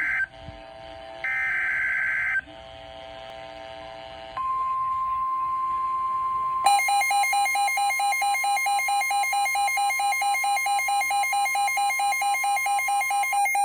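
NOAA Weather Radio Emergency Alert System broadcast: the last two bursts of the SAME digital header screech briefly, then the steady 1050 Hz warning alarm tone starts about four seconds in. About seven seconds in, a louder electronic beep pulsing about four times a second joins over it, typical of a weather radio receiver's own alert alarm.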